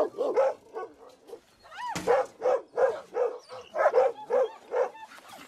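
Dogs barking in a quick steady series, about three barks a second, with a short rising-and-falling whine just before the barking picks up about two seconds in.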